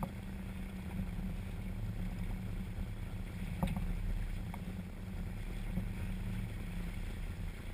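A boat engine idling with a steady low hum, under wind and water noise. A single sharp click sounds about three and a half seconds in.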